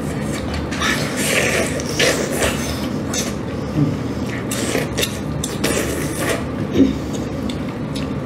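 A person eating a fatty piece of steamed fish by hand close to the microphone: irregular short chewing and sucking smacks over a steady background hiss.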